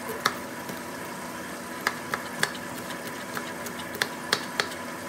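Kitchen knife chopping onion on a plastic cutting board: several sharp chops at irregular intervals, over a steady hiss of fish deep-frying in oil.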